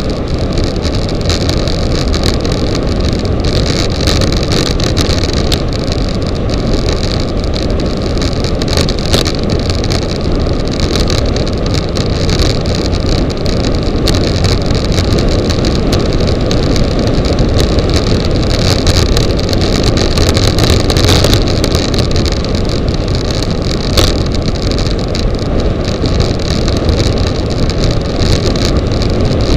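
Rushing wind buffeting a bicycle-mounted camera's microphone on a fast road descent, mixed with tyre-on-asphalt rumble. A few sharp knocks from bumps in the road stand out.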